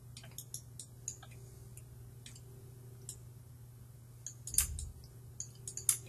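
Faint, scattered clicks of a computer mouse and keyboard at a desk, with a louder knock about four and a half seconds in, over a steady low hum.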